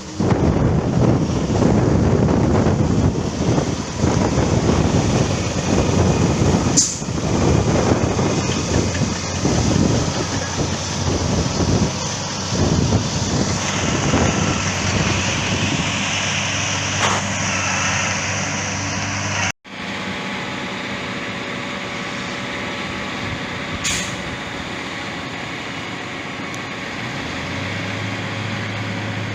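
Heavy construction machinery engines running: rough and uneven for most of the stretch, then, after a sudden cut about two-thirds of the way through, a steadier low engine drone.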